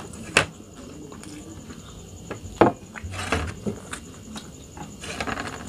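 A few scattered clicks and knocks of tableware at a meal: melamine plates and bowls and a drinking glass being handled on a wooden table, the loudest knock a little over halfway through.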